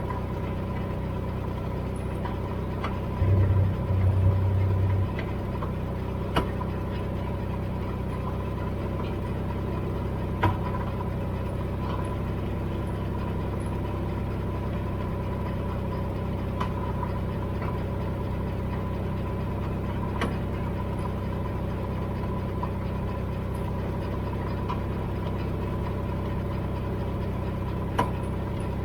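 Dodge vehicle's engine idling steadily. A sharp clunk comes every few seconds at uneven intervals, the clunking noise the vehicle is making. A louder low hum rises for about two seconds, about three seconds in.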